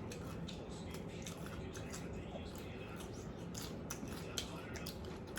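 Close-up eating sounds: crisp crunching and chewing, heard as an irregular run of small sharp clicks.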